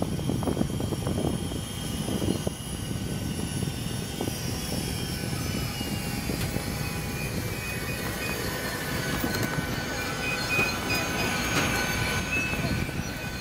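High-pitched aircraft turbine whine, several tones at once, one of them falling slowly in pitch through the middle, over a steady low rumble.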